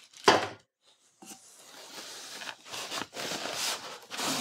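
Cardboard box and foam packing scraping and rubbing as an AV receiver is unpacked by hand: one short sharp rustle near the start, a brief gap, then about three seconds of uneven scraping.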